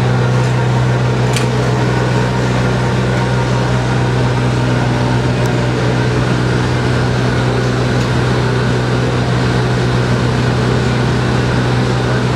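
Crane engine running with a steady low drone.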